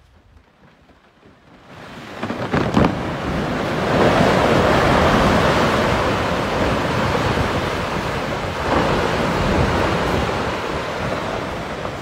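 Portage Glacier's ice face calving: sharp cracks about two seconds in, then a long, loud rumble as a house-sized block of ice collapses onto the frozen lake, with another crack partway through, slowly dying away.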